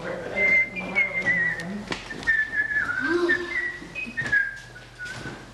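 A person whistling a wavering, warbling tune in short phrases, with a few sharp knocks of footsteps and the door among them.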